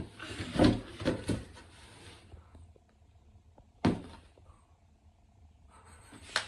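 A gift box being handled as a child reaches into it: a few short rustles and knocks in the first second or so, then one sharp thunk about four seconds in.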